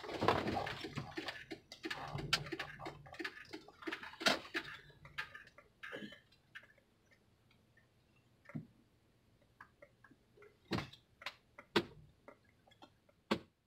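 Inside a car pulling into a parking space: a low engine hum with many small clicks and rattles, which fades away after about six seconds, leaving near silence broken by a few scattered sharp clicks.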